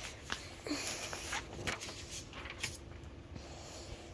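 Handling noise: scattered light knocks and rustles as the phone and nearby objects are moved about, over a faint steady hum.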